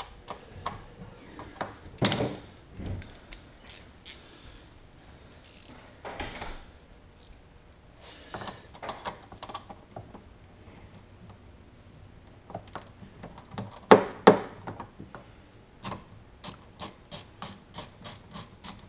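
Hand socket ratchet clicking in short runs while fasteners on a jet ski's exhaust pipe are worked loose, with a steady run of clicks near the end. Occasional sharp knocks come in between, the loudest about two seconds in and twice around the middle.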